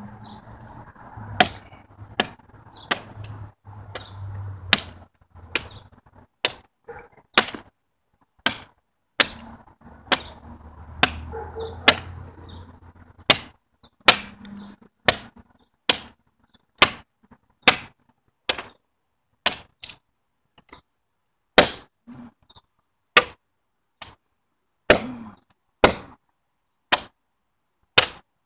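A long wooden pole striking wood again and again, sharp knocks at a steady pace of a little more than one a second.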